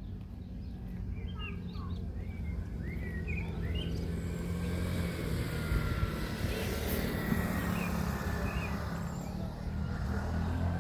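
Low, steady rumble of a motor vehicle's engine, slowly growing louder, with small birds chirping in the first few seconds.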